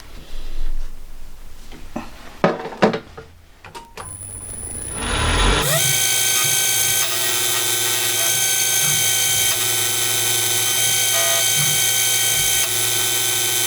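A few knocks, then about five seconds in a small metal lathe's motor and spindle spin up with a rising whine and run steadily at speed.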